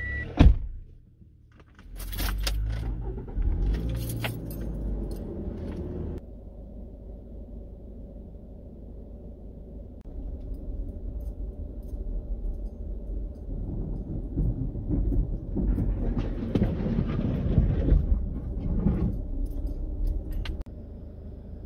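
A vehicle driving slowly along a gravel road: a steady low rumble of the engine and tyres, rising and falling, that drops off about a second before the end. It opens with a single thump, followed by a few seconds of clicking and rattling.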